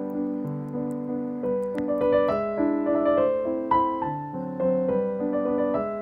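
Piano music: a gentle melody over repeating chords, the notes changing every half second or so.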